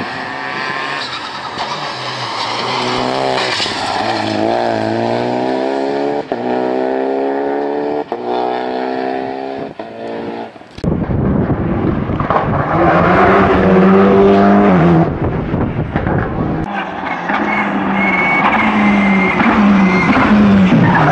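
Rally cars' engines accelerating hard on a tarmac stage, a Renault Clio first and later a Škoda Fabia. The pitch climbs and drops back again and again as they shift up through the gears. A thin high squeal comes near the end as the Fabia slides through a hairpin.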